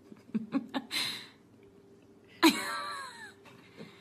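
A single whining cry about halfway through, falling in pitch and lasting just under a second. It follows a few faint clicks and a brief hiss about a second in.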